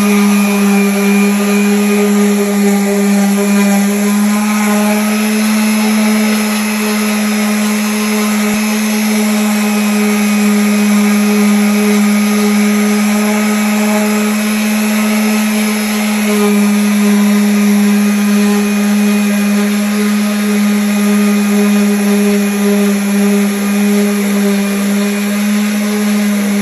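Electric sander running steadily against wood, with a constant motor hum.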